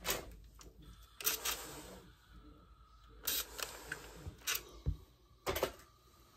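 Hands rustling and smoothing printed cotton fabric on an ironing board in several short swishes, with a small dull knock about five seconds in.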